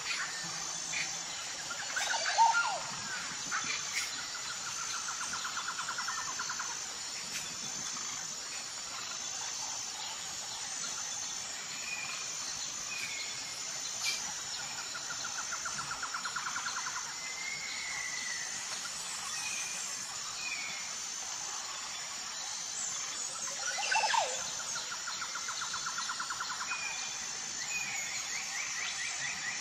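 Birds chirping and trilling over a steady, pulsing chorus of insects. Twice, about two seconds in and again near the end, small clay and steel cookware clinks as it is handled.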